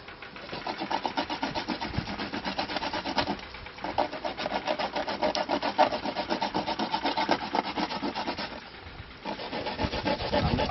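Coconut being grated by hand on a metal box grater: quick, even scraping strokes, about four a second, with two short pauses, one about three and a half seconds in and one near nine seconds.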